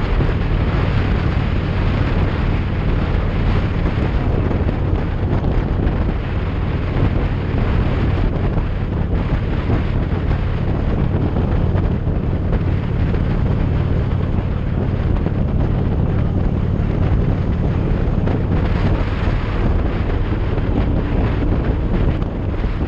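Motorcycle cruising at a steady speed: the engine's low hum holds an even pitch under loud wind buffeting on the microphone.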